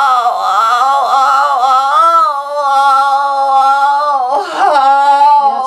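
A person's wordless vocal sound, sung long and unbroken on one pitch: it wavers for the first two seconds, then holds steady, and dips and breaks briefly near the end. It is an emotional-release vocalisation: one sound voiced out from the chest.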